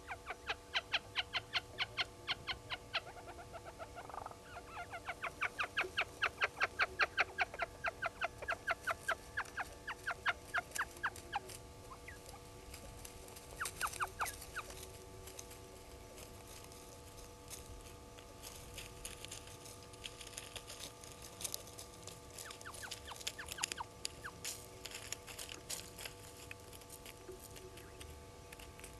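Blacksmith lapwing calling: fast runs of sharp 'tink' notes, about six a second, in two bouts over the first dozen seconds, then a few scattered notes and fainter high ticking.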